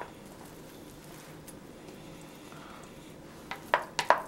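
A wooden spatula scrapes soft cream cheese out of a glass bowl with faint squishing. Near the end comes a quick run of about five sharp knocks as the spatula and bowls clack together.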